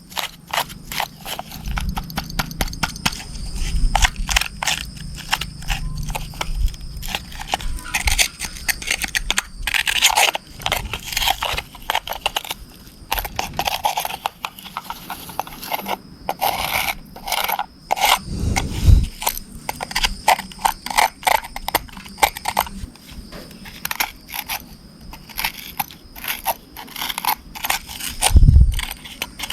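Dried mud being scraped and picked off an RC car: a dense, irregular run of small crackling scrapes and crunches, with two low thuds, one about two-thirds of the way through and one near the end.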